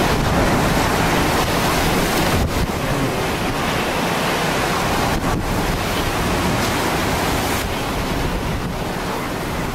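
Hurricane wind and driving rain over rough surf, buffeting the microphone: a loud, steady rush of noise that dips briefly twice.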